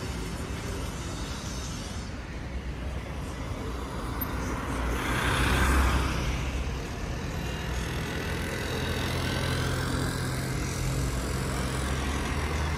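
Road traffic on a city street: a steady rumble of passing cars, with one vehicle passing close about halfway through, the loudest moment, and an engine hum running on after it.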